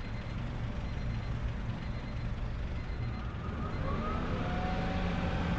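Turbocharged Honda D-series four-cylinder engine idling steadily just after being started. About three and a half seconds in, a faint whine comes in, rises in pitch and then holds steady.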